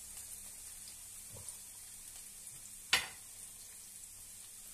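Diced red pepper and garlic frying gently in olive oil in a frying pan, a quiet steady sizzle, with one sharp knock about three seconds in.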